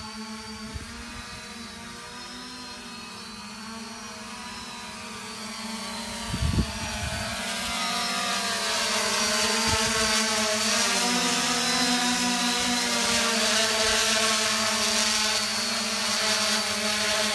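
3D Robotics Iris+ quadcopter hovering, its electric motors and propellers giving a buzzing whine of several tones that waver as the motor speeds adjust. It grows louder from about seven seconds in as the drone comes closer, with a brief knock about six and a half seconds in.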